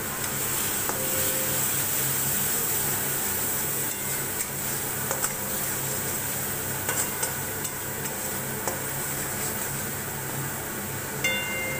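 Spice paste sizzling in oil in a pan while it is stirred with a spatula, with a steady hiss and occasional scrapes and taps of the spatula against the pan. This is the masala being fried down with turmeric, chilli powder and garam masala just added.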